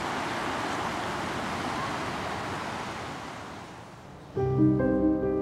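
Sea surf washing over a shingle beach, fading away; about four seconds in, background music starts abruptly with held notes and a repeating figure.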